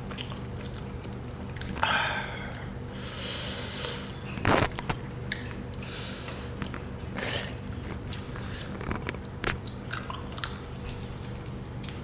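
A person eating grilled chicken with their hands: biting, tearing and chewing the meat, with a few louder short noisy bursts and scattered clicks, over a steady low hum.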